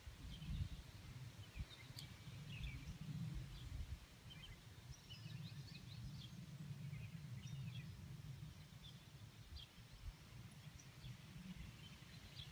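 Low, uneven rumble of wind on the microphone, with brief bird chirps scattered throughout.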